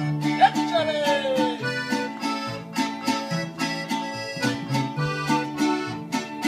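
A live folk band playing an upbeat tune, with acoustic guitars strummed in a steady rhythm over held accordion chords. Near the start a high sliding note drops in pitch over about a second.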